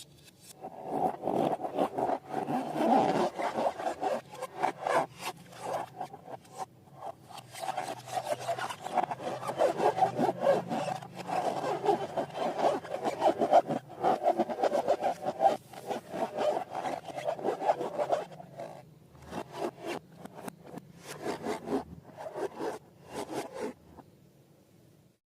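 Slime being stirred and squished, a fast run of sticky rubbing strokes that thins out after about three quarters of the way and stops near the end.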